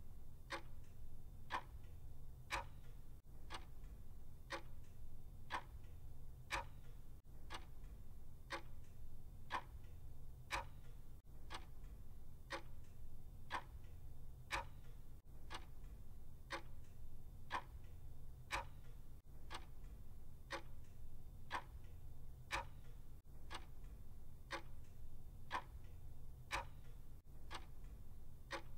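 Clock ticking steadily, about two ticks a second, alternating stronger and weaker in a tick-tock rhythm.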